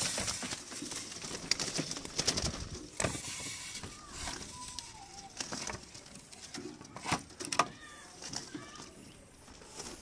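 A young dove being taken by hand out of a wooden trap cage: scuffling and rustling against the wood with a few sharp knocks, the clearest about three seconds in and twice around seven seconds in.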